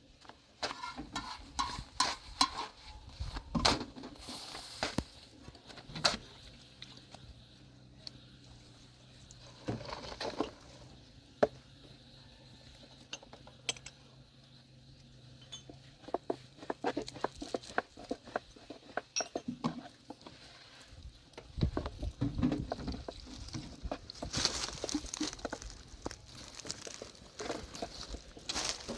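Scattered clinks and knocks of hard objects being handled, coming in busy spells at the start and again near the end.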